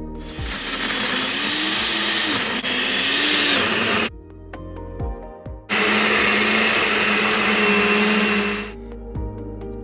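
Cuisinart SmartPower 7-speed blender running twice, first for about four seconds and then, after a short pause, for about three more, blending ice, strawberries and banana into a smoothie. The motor's pitch wavers through the first run and holds steady in the second, once the mix is smooth.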